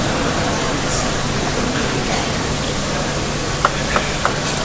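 Steady hubbub of an arena crowd. About three and a half seconds in come a few sharp clicks of a table tennis ball, about a third of a second apart.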